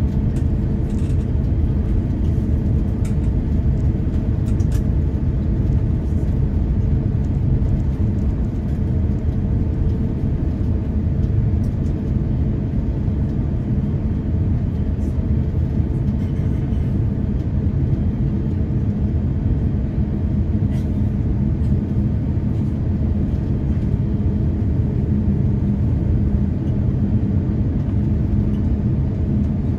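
Airbus A350-1000's Rolls-Royce Trent XWB engines running at low taxi power, heard from inside the cabin as a steady low rumble with a steady hum over it.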